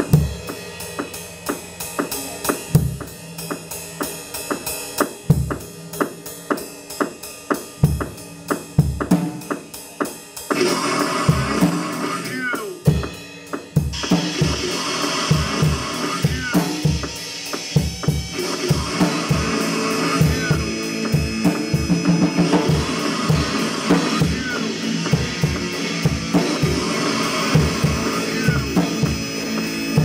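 Live screamo band playing loud: an acoustic drum kit keeps a fast cymbal pattern with sparse bass-drum hits, then about ten seconds in a dense wall of droning guitar noise comes in and thickens a few seconds later, while the kick drum hits come much faster.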